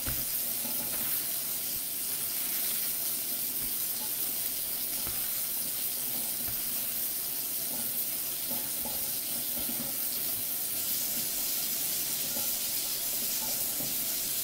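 Steady hiss of food cooking on the stovetop.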